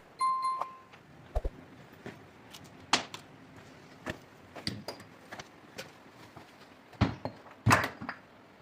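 Irregular knocks and clatter of objects being handled, with a brief metallic ring just after the start and the loudest knocks about three seconds in and near the end.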